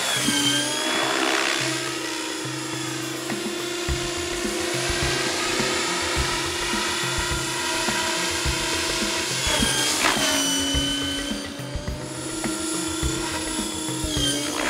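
Backing music with a steady drum beat that comes in about four seconds in, laid over the steady whine of a large radio-controlled helicopter's rotors in flight.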